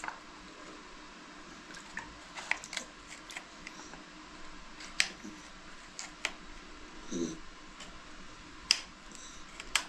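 Kitchen knife slicing a cucumber on a plate, the blade clicking sharply against the plate every second or two, at irregular intervals.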